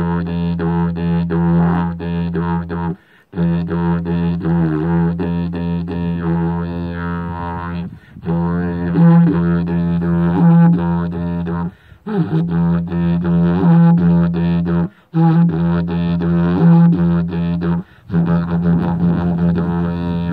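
Didgeridoo playing a steady low drone with shifting overtones and a rhythmic pulse, broken by short pauses about every three to four seconds.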